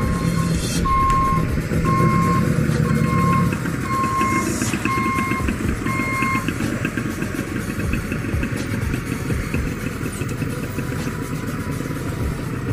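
Motorcycle engines running and passing at close range, with an electronic beeper sounding evenly about one and a half times a second until it stops about six seconds in.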